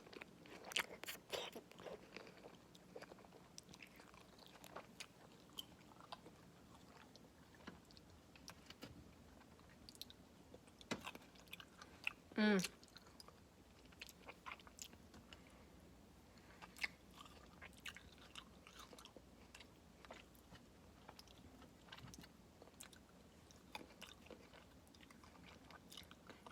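Close-miked mouth sounds of someone biting and chewing grapes: irregular wet clicks and crunches. About halfway through comes one brief, louder high sound that falls steeply in pitch.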